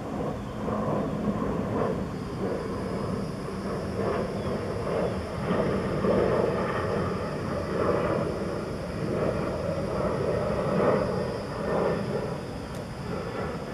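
Steady outdoor background rumble that swells and fades every second or two.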